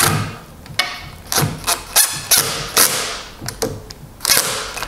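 DeWalt XR cordless impact driver running in short bursts of hammering, screwing a threaded steel cam lock pin into a pre-drilled hole in particleboard.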